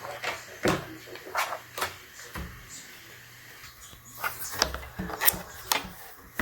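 Wireless split ergonomic keyboard being handled and pressed: irregular clicks and knocks, a cluster in the first two seconds and another about four to six seconds in, with a pause between.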